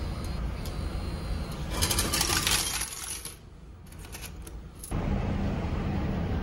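Change machine paying out coins: a dense metallic clatter of coins dropping into the dispensing tray about two seconds in, lasting a second and a half, followed by a few softer clinks as they are scooped out by hand.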